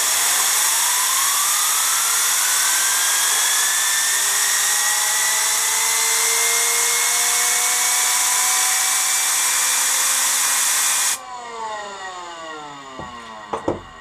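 Compressed air from a blow gun hissing into the turbine of a type 3263 aircraft turbo-cooler, with a whine rising steadily in pitch as the turbine wheel spins up. About eleven seconds in the air cuts off suddenly and the whine falls away as the turbine coasts down, followed by a light knock near the end.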